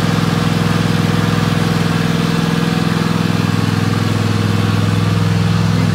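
Riding lawn mower engine running at a steady drone.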